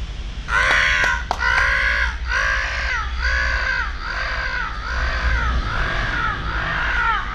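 A man imitating crow caws through cupped hands: a steady run of loud, harsh "kaa" calls, about two a second, starting about half a second in.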